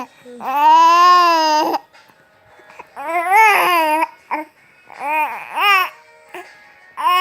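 Baby vocalizing in a series of drawn-out, pitched calls about a second long, each rising and falling in pitch, somewhere between babbling and fussy crying.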